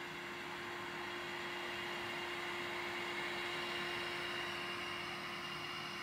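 Small electronic cooling fans of a home-built Peltier-cooled mini fridge and its switching power supply running steadily. They give an even whir with a constant low hum tone, a little louder midway through.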